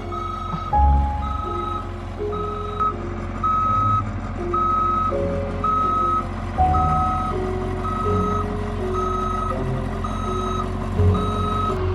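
A steady high beeping, about one beep a second, over music with a slow melody of held notes and soft low thumps.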